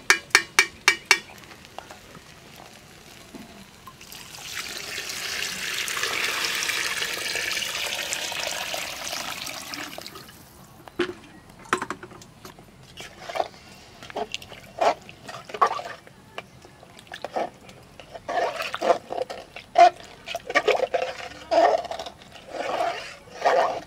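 A spoon taps the rim of an aluminium cooking pot about six times in quick succession, then water is poured into the pot for about six seconds, swelling and fading: water going in over fried rice, lentils and vegetables for khichuri. After that a spoon stirs the pot, knocking and scraping against its metal sides with a ringing clink.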